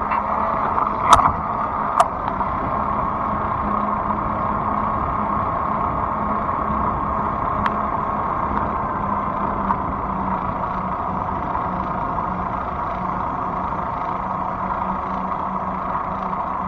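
Fat-tire electric bike riding along, with a steady hum and rolling noise from its motor and tyres. Two sharp clicks come about one and two seconds in.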